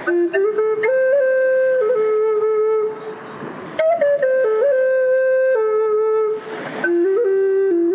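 Solo flute recording playing a slow melody of long held notes, with a breathy hiss between phrases about three seconds in and again near the end. The recording had been clipped by automatic gain control and is heard after de-clipping repair, its flattened peaks rebuilt to restore the missing dynamic range.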